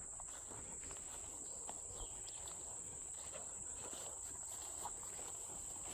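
Insects trilling steadily in one high pitch, with faint scattered footsteps on the ground beneath.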